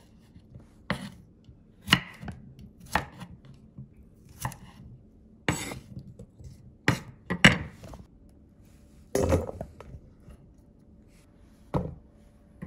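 Kitchen knife cutting cucumber into sticks on a wooden cutting board. Separate, uneven chops come roughly one a second as the blade strikes the board.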